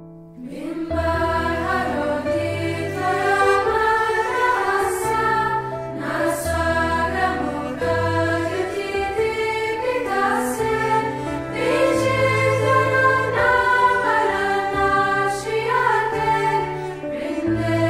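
Background music: a choir singing a slow devotional song over held bass notes and changing chords, coming in about a second in.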